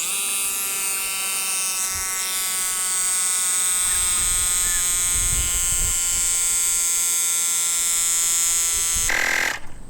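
AUXITO A301 cordless tire inflator's small electric compressor running steadily with a high whine as it pumps up a flat bicycle tire, then stopping abruptly near the end as it shuts off at its set pressure of 38 psi.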